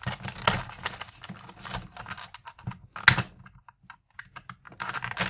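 Stiff clear plastic blister packaging crackling and clicking as it is pried open by hand, in quick irregular crackles with one sharper snap about three seconds in.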